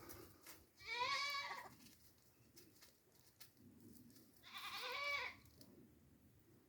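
A goat bleating twice, two short wavering high-pitched bleats about three and a half seconds apart.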